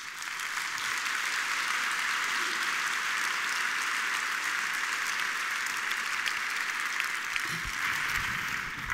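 Large audience applauding steadily, a dense even patter of many hands clapping.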